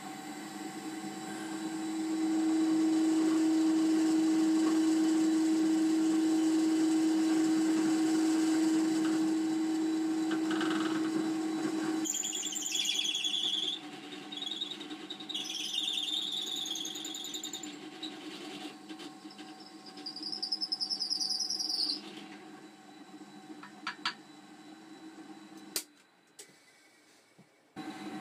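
Bench drill press running with a steady hum as its bit bores into an antler knife handle, hollowing it out for a hidden tang. The cutting squeals in three bouts of about two seconds each, and the drill shuts off near the end.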